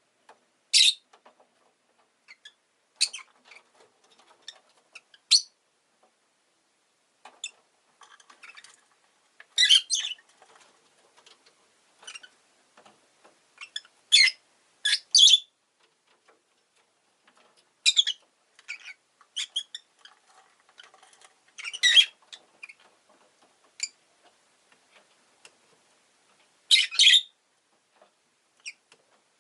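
Rosy-faced lovebird (Agapornis roseicollis) giving short, sharp, high-pitched chirps at irregular intervals, sometimes two or three in quick succession.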